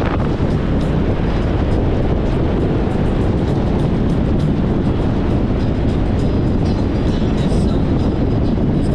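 Touring motorcycle cruising at a steady speed of about 40 mph, engine running under a steady rush of wind noise on the microphone.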